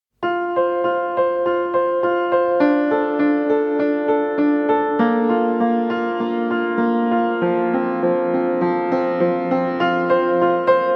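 Background music: a piano or electric-piano tune of repeated notes at about two a second.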